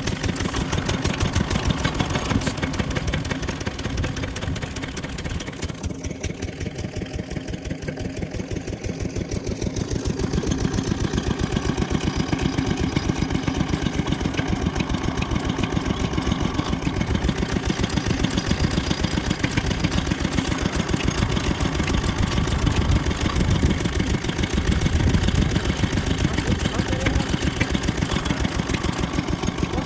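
Single-cylinder stationary diesel engine running with a steady, rapid beat, belt-driving a centrifugal water pump on a borewell. It gets a little louder about ten seconds in.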